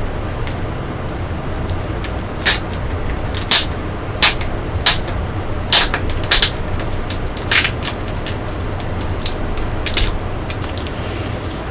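Packaging being opened by hand: about ten sharp, irregularly spaced crackles and rips, over a steady low hum.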